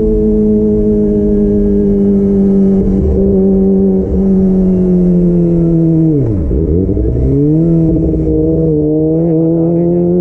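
Kawasaki ZX25R's 250 cc inline-four running through a DX Generation Pro Race exhaust with the dB killer removed, heard from the rider's seat while riding. The engine note holds steady and sags slowly. About six seconds in the revs drop sharply and climb straight back, then settle again.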